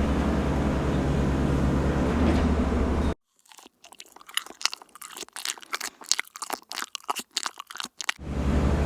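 A steady machine drone with a low hum cuts off abruptly about three seconds in. About five seconds of irregular, crisp crunching and clicking follow, and the drone returns near the end.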